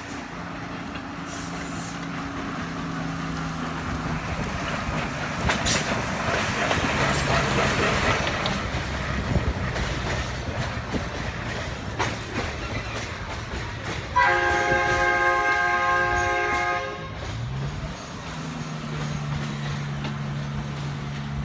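Bennett Brook Railway's Planet diesel locomotive running, with rail and wheel clatter through the middle, then a horn blast of about three seconds roughly two-thirds of the way through. Afterwards the engine note rises and holds steady.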